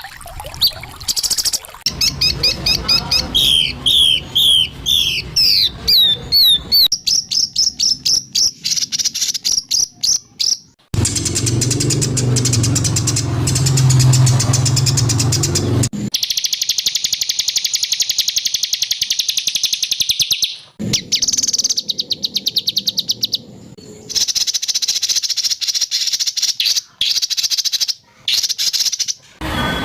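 Spliced recordings of songbird calls for training a white-rumped shama: a run of quick descending whistled notes, then fast dry rattling trills and chatters. The sound changes abruptly several times as one recording cuts to the next.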